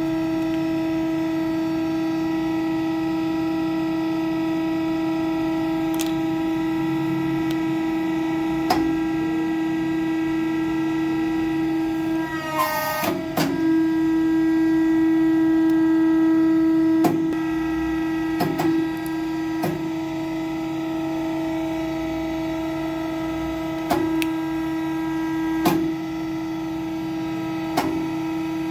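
Hydraulic press pump running with a steady hum. About halfway through comes a brief rough burst, after which the hum runs a little louder for a few seconds. Sharp clicks come now and then through the second half as the ram presses the folded paper flat and lifts.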